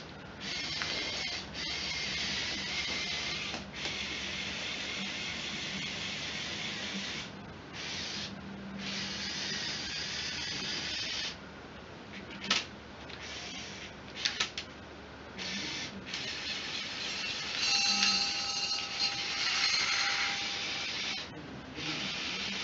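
Lego Technic 8043 excavator's small electric motors and plastic gearing whirring in bursts as the boom and turntable move, stopping and starting several times. There are a few sharp clicks around the middle and a steadier, higher whine with a clear pitch near the end.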